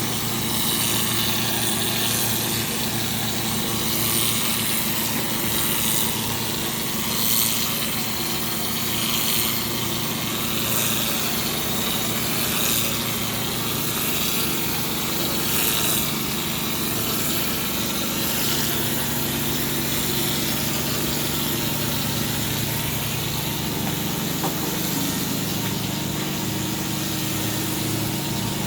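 Plaster spraying machine running: a steady motor hum with repeated short bursts of high hiss in the first half, and the hum shifting in pitch about two-thirds of the way through.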